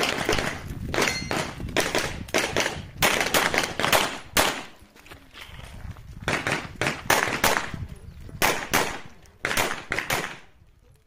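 A semi-automatic pistol fired in rapid strings of shots, mostly in quick pairs, as in a practical-shooting course of fire. The shots pause for about a second and a half near the middle while the shooter moves, resume for several more strings, and stop about a second before the end.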